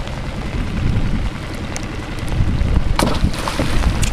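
Wind buffeting the microphone in a small open boat on a lake: a steady low rumbling noise, with a single knock about three seconds in.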